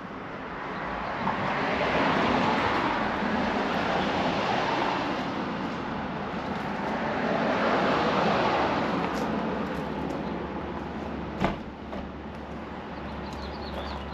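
Road traffic passing: two vehicles go by in turn, each a wash of tyre and engine noise that swells and fades. A single sharp knock sounds about eleven and a half seconds in.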